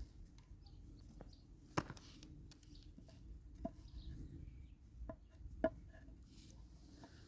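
A handful of faint, sharp wooden knocks at irregular intervals, the loudest about two seconds in: timber being struck or chopped during woodwork.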